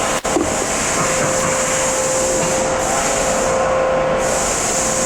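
Steady mechanical hum and hiss from a CNC lathe in a machine shop, with a steady tone and a high hiss that cuts out briefly twice. A short click sounds just after the start.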